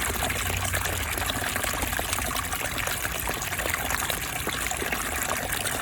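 Water pouring and splashing steadily from the output of a wood-fired pool heater, its flow of warmed water running on evenly with small irregular splashes.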